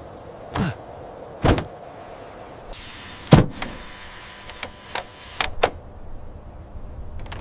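A series of sharp knocks and clicks, about seven of them spread out and the loudest near the middle, with a steady hiss that starts about three seconds in and stops about three seconds later.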